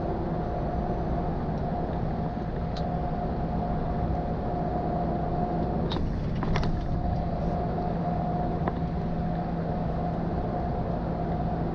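Inside the cab of a MAN truck at highway cruising speed: a steady drone of engine and road noise, with a constant hum and tone running through it. A few light clicks or rattles come about six seconds in.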